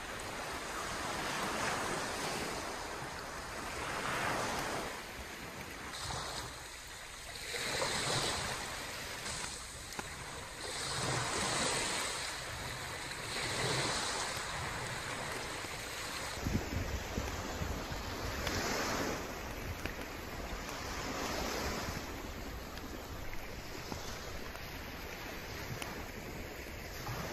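Sea waves breaking and washing onto a sandy beach, swelling and fading every few seconds. Wind blows throughout, and about halfway through it starts buffeting the microphone with a low rumble.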